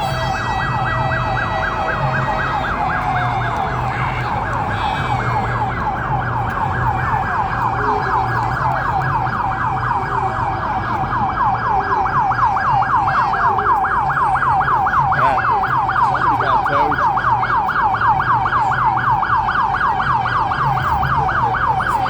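Emergency vehicle siren on a fast yelp, rising and falling about three times a second without a break, growing louder about halfway through.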